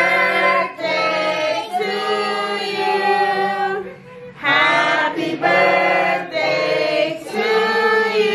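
A group of people singing a birthday song together in unison, long held notes with short breaks between the lines.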